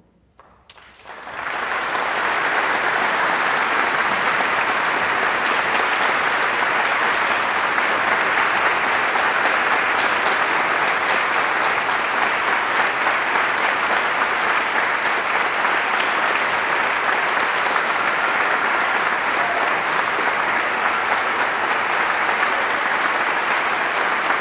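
Audience applauding: after near silence, scattered claps start about half a second in and swell within two seconds into steady, full applause.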